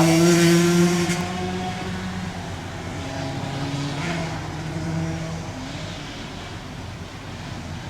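Racing engines of flat track machines running hard as the pack goes by, loudest in the first second and then fading away as they move off.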